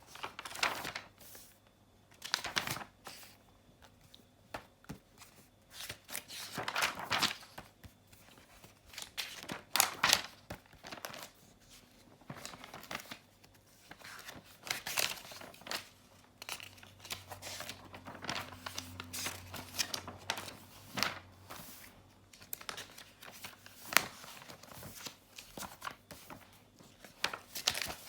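Pages of a book being flicked and turned by hand: irregular paper swishes and flaps, some in quick runs and some single, with short pauses between.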